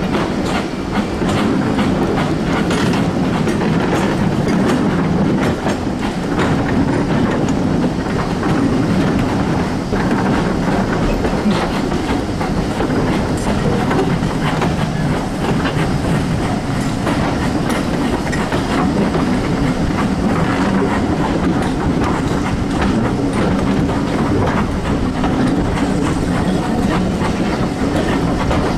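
Steam-hauled train of coaches behind a BR Fairburn 2-6-4 tank locomotive running at speed, wheels clattering steadily over the rail joints, heard from a carriage window.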